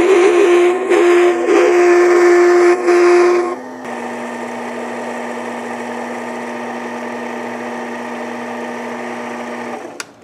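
Mini lathe cutting tool fed into spinning aluminium stock, chattering with a loud, horrible-sounding ringing squeal that breaks off briefly a few times. About three and a half seconds in the cut ends and the lathe's motor runs on with a steadier, lower whine until it stops near the end.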